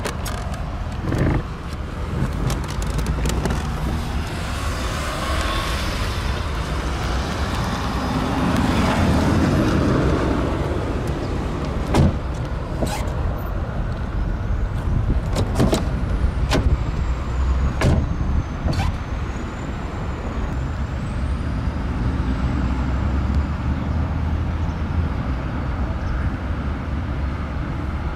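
Car sound: a steady low rumble that swells about eight to ten seconds in, with several sharp clicks or knocks in the middle.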